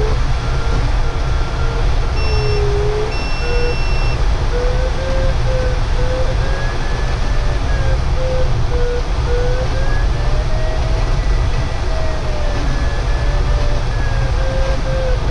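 Glider variometer in a DG505 cockpit beeping rapidly, its pitch slowly wandering up and down and highest about two-thirds of the way through, signalling the changing rate of climb. Underneath is a loud, steady rush of airflow noise. A higher tone sounds twice, briefly, between about two and four seconds in.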